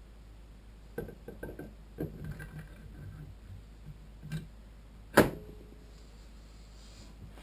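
Cylinder head of a Kawasaki ZX-10R four-cylinder engine lowered over the head studs onto the block: light metallic clicks and scrapes, then one sharp knock a little after five seconds in, the loudest sound, as the head goes down onto the gasket.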